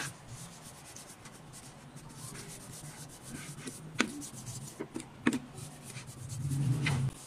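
Cloth rag rubbing wood polish along a wooden strip, a soft, even scrubbing, broken by a few sharp knocks, the loudest about four and five seconds in.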